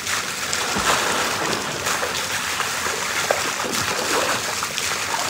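A person swimming in a pool, arms and legs splashing the water steadily close by.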